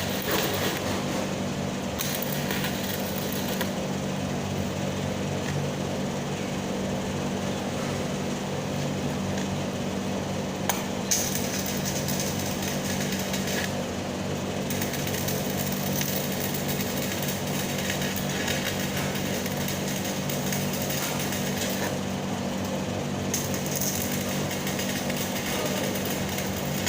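Stick-welding arc crackling and sputtering steadily, with a steady low hum underneath and one brief sharp click about halfway through.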